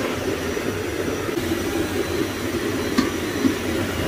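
Small gas cooking stove burner running with a steady rushing roar under a simmering pot of fish curry. A short metallic clink about three seconds in, as a steel plate is set over the pot.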